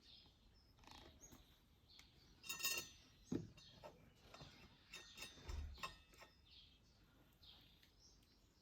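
Faint metallic clinks and taps of sprocket bolts being handled and set through the plates into the wheel hub: a short ringing clink, a sharp click and scattered light ticks, with a dull low thump about halfway through.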